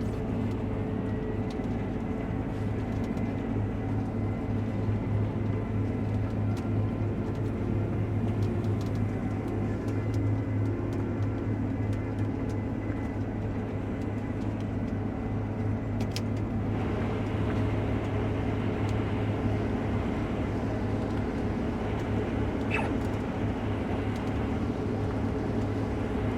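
Case IH combine harvester's engine and machinery running steadily, heard from inside the cab as a constant low hum. A brighter hiss joins from a bit past the middle onward.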